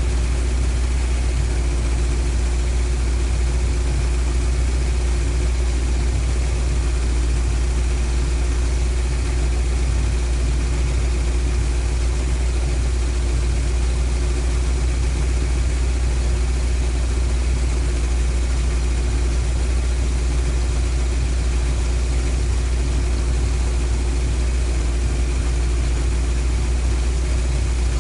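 Toyota 5-valve 4A-G four-cylinder engine idling steadily at operating temperature.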